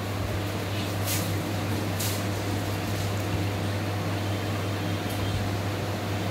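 Steady electric machine hum with a constant hiss in a dental surgery, and two short hisses about one and two seconds in.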